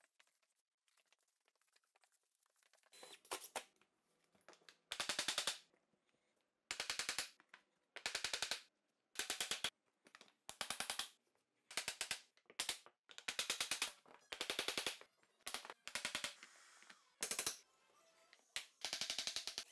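Hammer and tapping block knocking laminate planks together, heard as rapid rattling trains of sharp taps. After a few quiet seconds, more than a dozen bursts follow, each about half a second to a second long, with short quiet gaps between them. The bursts are so fast and even that they sound like sped-up playback.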